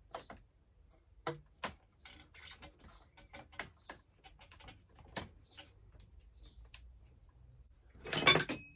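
Handling noises from work on a bicycle: a few sharp clicks, with light scraping and rubbing spread between them and a louder rustling burst near the end.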